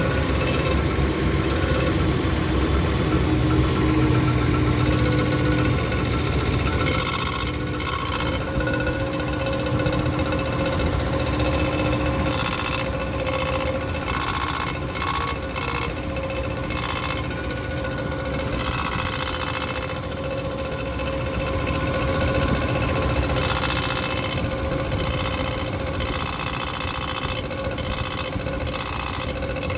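A 2011 Ram pickup's engine idling steadily. It makes a cold-engine noise that the owner traced to the bent metal plate between the transmission and the engine.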